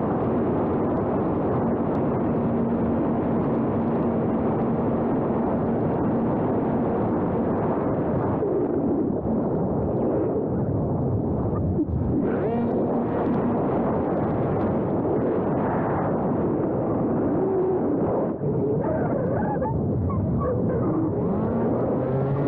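Wind rushing and buffeting over the microphone, steady and dense throughout. A faint steady hum sits under it and stops about six seconds in.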